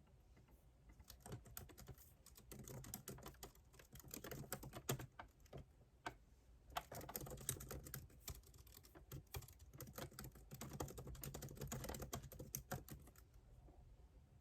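Typing on a computer keyboard: a rapid run of keystrokes, a brief pause about halfway, then another long run that stops shortly before the end.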